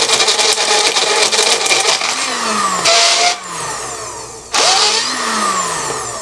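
Magic Bullet blender motor running with large ice balls clattering against its ice-crushing blade. After about two seconds it surges twice in short bursts, the motor's pitch falling off between them. The blade fails to crush the ice, which the owner takes for the blade slipping.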